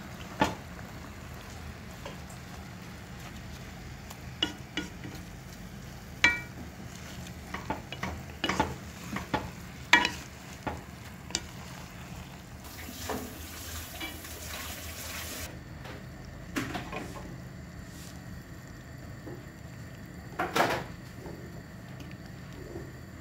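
Wooden spoon stirring turnip and spinach curry in a nonstick pot, scraping and knocking against the pot at irregular moments over a steady low hum. A soft hiss comes in for a few seconds in the middle.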